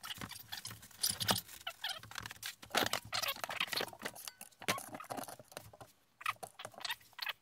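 Handling noise: irregular scratchy rustles, scrapes and clicks as a stack of large paper prints is shifted about and the camera is moved, with a brief lull about six seconds in.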